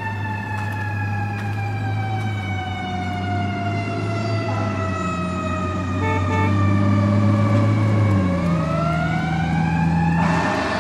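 Siren wailing: one tone slowly falls in pitch for about eight seconds, then climbs again, over a steady low hum. A burst of noise comes in near the end.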